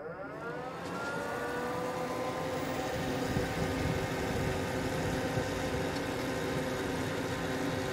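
Desktop PC fans, the graphics card's fans among them, spinning up as the computer is switched on. Their pitch rises over the first second or so, then they settle into a steady whirring hum. This is the first power-on after a graphics card fan was replaced.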